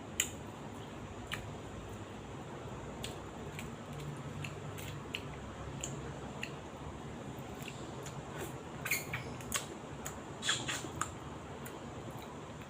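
Eating sounds from someone eating leftover chicken thigh: scattered short clicks and smacks of chewing and handling the food, with a cluster of them past the middle.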